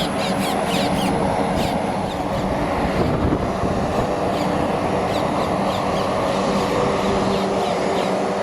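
Steady engine noise of an aircraft running at the airport, with a low hum of several tones, while birds give rapid short calls in the first two seconds and again faintly midway.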